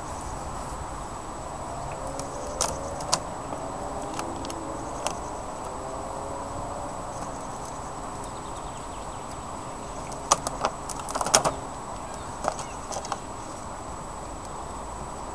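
Honeybees buzzing steadily around an opened hive, with sharp clicks and knocks as the wooden hive parts and plastic cover are handled; the loudest cluster of knocks comes about ten seconds in.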